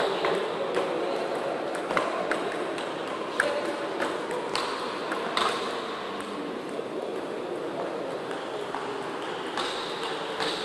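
Table tennis rally: the ball clicking sharply off the paddles and the table, roughly once a second, with a pause in the hits late on and a few more clicks near the end.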